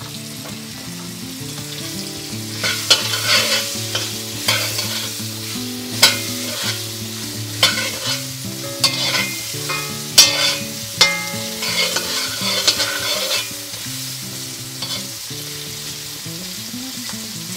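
A metal spatula scrapes and knocks against a cast iron kadai while pumpkin cubes are turned over, frying in ghee with a light sizzle. The clatters come irregularly from about three seconds in until about thirteen seconds, then thin out, leaving the sizzle.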